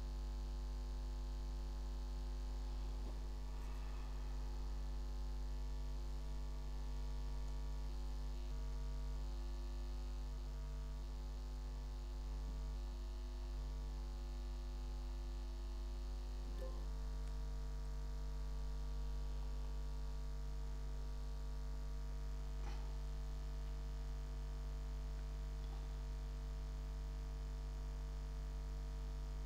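Steady electrical mains hum: a low, even buzz with a stack of overtones, whose overtones shift slightly about halfway through. A couple of faint ticks sound over it.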